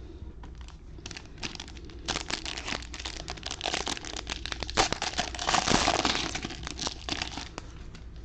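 Packaging of a sealed trading-card box being crinkled and torn open by hand: a dense run of irregular crackles and snaps, loudest about two-thirds of the way through.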